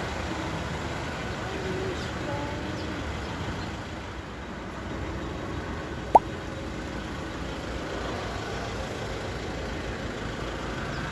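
Steady road traffic running past, with faint voices, and one short sharp rising squeak a little past the middle.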